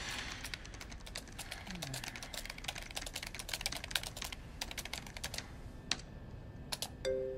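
Typing on a laptop keyboard: a quick, steady run of keystrokes that thins out after about five seconds to a few single taps near the end.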